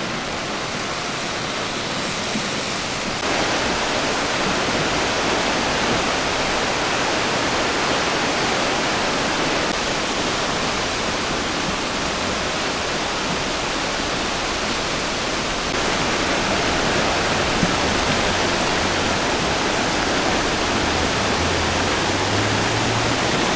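Rushing floodwater of a swollen river in flash flood, a steady loud rush of water that gets a little louder about three seconds in.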